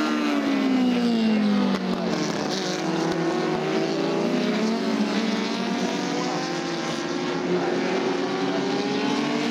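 Engines of several historic single-seater racing cars running hard through a bend, their notes overlapping. One engine note falls over the first two seconds, then several notes climb as the cars accelerate away.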